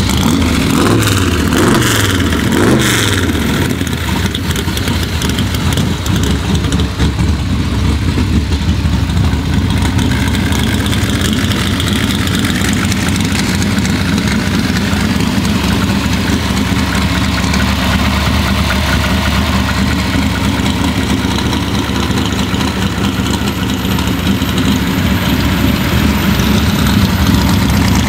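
Shelby Cobra replica's 410 Windsor V8 running through its side-exit exhaust pipes. It is revved twice in the first few seconds, the revs falling back each time, then settles to a steady idle.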